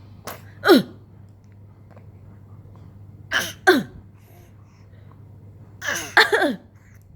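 A person putting on a fake cough in three bouts, each of two or three quick coughs ending in a voiced tail that falls in pitch.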